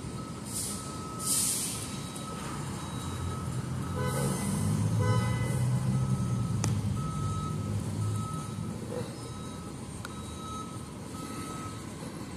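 A vehicle's reversing beeper sounding repeatedly, about one beep a second, over traffic noise. A low rumble swells in the middle, and there are two short hisses near the start.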